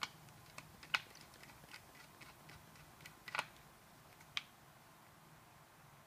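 Small scattered clicks and taps as a precision screwdriver works the small screws that fix a hard drive into an aluminium optical-bay caddy, the loudest about a second in and again a little after three seconds, then it goes quiet.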